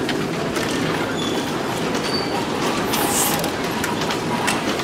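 Inside a moving tour bus: a steady road rumble with small rattles and clicks, and a short hiss about three seconds in.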